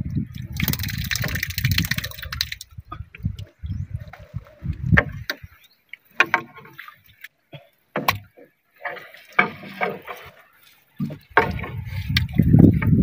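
Sea water splashing and lapping around a small wooden outrigger boat, with a burst of splashing about a second in, amid scattered knocks and rustles as a fishing net and the fish caught in it are handled in the boat.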